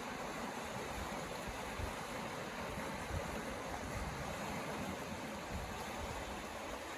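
Steady rush of sea surf washing on the shore, with low, uneven wind buffeting on the microphone.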